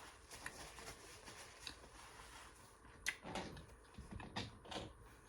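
Faint sounds of someone eating: chewing and small mouth and handling noises, with a few short, sharper clicks and knocks from about three seconds in.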